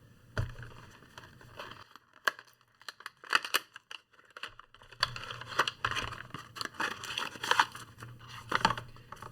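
Packaging of a small lavalier microphone being opened and handled: irregular rustling, crinkling and tearing with a few sharp clicks, quieter for a moment in the middle.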